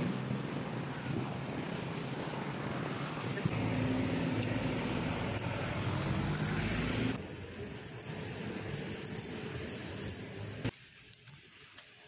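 Street traffic close by: a truck engine running and passing with road noise, its pitch rising before the sound drops off suddenly about seven seconds in. Quieter street ambience follows and falls away again near the end.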